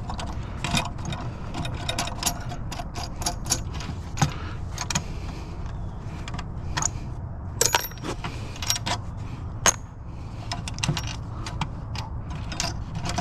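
Scrap metal parts being handled: irregular sharp clicks, clinks and knocks of metal on metal over a steady low rumble.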